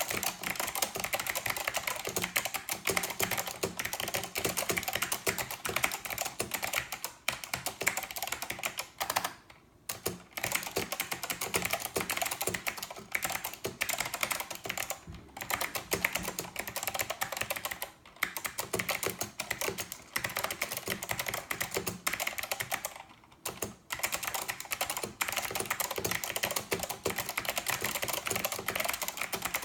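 Fast continuous typing on a Northgate OmniKey 102 mechanical keyboard with clicky SKCM Blue Alps switches, with brief pauses about nine seconds in, around eighteen seconds and around twenty-three seconds.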